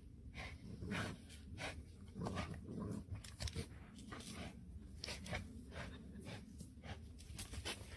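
A pet animal making a run of short, irregular sounds, two or three a second.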